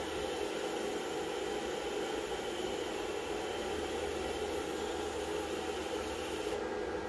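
TIG welding arc on stainless-steel exhaust tubing, a steady even hiss that thins out in its upper part near the end.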